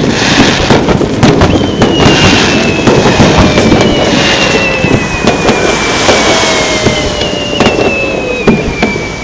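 Aerial fireworks bursting in quick succession, with sharp bangs and crackling. Over them run long tones that each fall slowly in pitch over several seconds.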